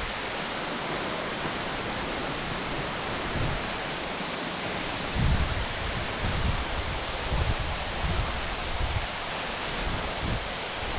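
Grunas waterfall crashing down steadily, an even, unbroken rush of falling water. Low gusts of wind buffet the microphone now and then, mostly in the second half.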